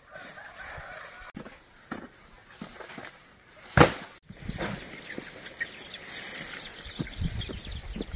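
A cut banana trunk dropped onto bare ground with one heavy thud a little before halfway, with rustling and footsteps in dry leaves around it.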